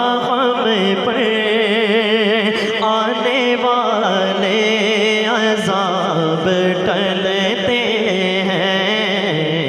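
A man's solo voice singing a naat, stretching a line's vowel into a long ornamented melisma with a quick, wide vibrato and sliding pitch, over a steady low drone.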